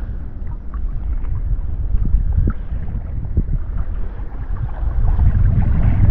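Wind buffeting the camera microphone, a heavy, steady low rumble, with faint splashes and sloshing of shallow water around someone wading.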